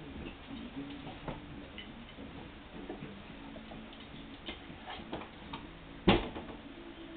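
Basenji dogs' and puppies' claws clicking on a tiled floor as they play, in scattered irregular ticks, with one louder knock about six seconds in.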